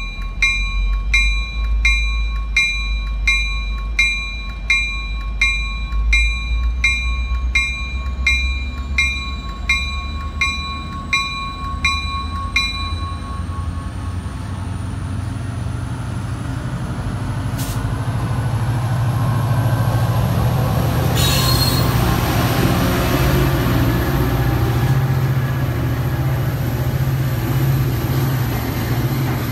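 MBTA diesel commuter locomotive ringing its bell at a steady one and a half strikes a second while it stands at the platform. After about thirteen seconds the bell stops and a high whine rises steadily. The engine then revs up as the train pulls out, and the coaches roll past with a steady rumble.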